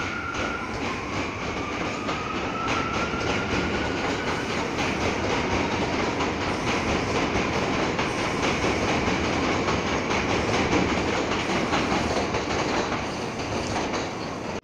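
New York City subway train pulling away along the elevated track. Its motor whine rises in pitch over the first few seconds, and the wheels clatter over rail joints.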